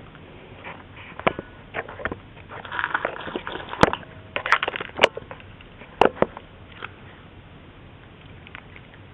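A cat eating dry kibble: irregular crunches and chewing, thickest in the middle, with a few sharp clicks between about four and six seconds in.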